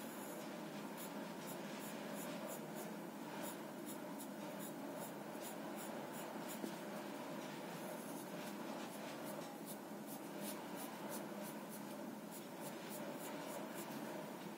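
Pencil scratching on drawing paper in quick, short strokes, two or three a second with a few brief pauses, as leaf strokes are flicked in. A steady low hum sits underneath.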